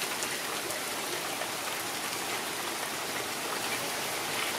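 Steady, even outdoor hiss with a few faint ticks in it.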